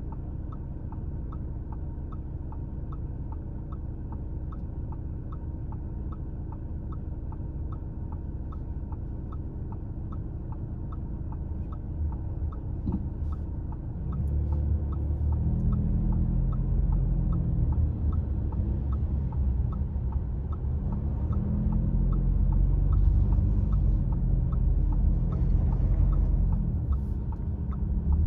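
Car turn-signal indicator clicking steadily, about one and a half clicks a second, over a low engine rumble. About halfway through, the engine grows louder and changes pitch, as under acceleration.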